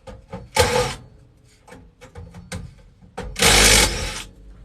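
Furnace vent pipe being slid and shifted, two rough scraping rubs, the second longer and louder, with light clicks and knocks of handled parts in between.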